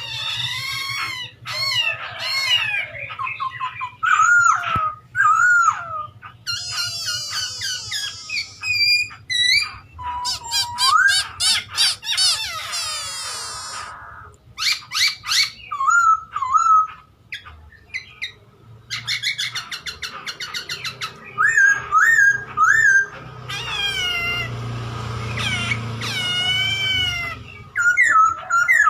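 Poksay Hongkong laughingthrush singing gacor, without pause: a loud, varied song of clear gliding whistles, rapid trills and warbled phrases.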